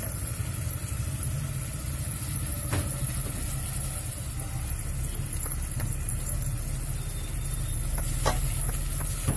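A steady low hum, with a few light knocks of the steel mixer jar against a steel pot, about three seconds in and again near the end, as ground masala paste is scraped into it.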